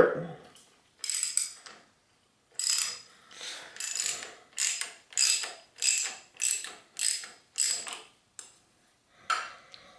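Ratchet wrench clicking through a run of short back-swings, about two strokes a second, as it unscrews the threaded top cap of an RST Gila T5 suspension fork.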